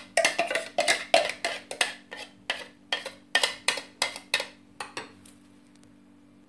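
A spoon knocking and scraping sauce out of a clear plastic food-chopper bowl into a ceramic dish: a quick run of clinks, about four a second, that fades and stops a little after five seconds in.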